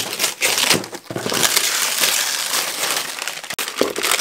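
Gift wrapping being torn and crumpled off a taped cardboard box: a few sharp rips in the first second, then steady crinkling and rustling.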